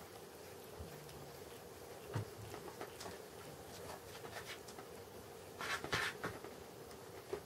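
Ginger domestic cat licking its paw pads: soft wet tongue strokes and small clicks, with a louder run of licking about six seconds in. A faint steady hum lies underneath.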